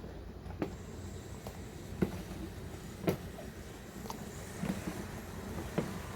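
A few light, sharp knocks and taps, about four of them spread out, the one near the middle the loudest, from ingredients and utensils being handled on a kitchen counter, over a steady low hum.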